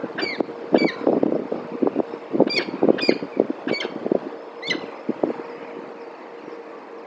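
Peregrine falcon giving about six short, sharp descending calls over rapid scraping and knocking on the metal nest-box grating; the scraping and calls die away after about five seconds.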